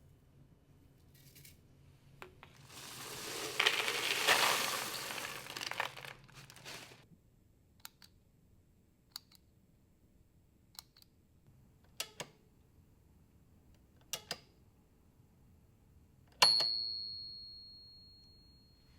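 Small laboratory handling sounds: a noisy rush lasting about four seconds, then a few separate sharp clicks. Near the end, a sharp strike rings on as a single high tone and fades away over a couple of seconds.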